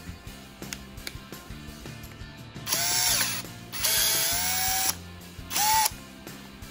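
iBELL BM18-60 20V brushless cordless drill/driver run three times in short bursts, the middle one longest, each a whine that rises as the motor spins up and then holds steady.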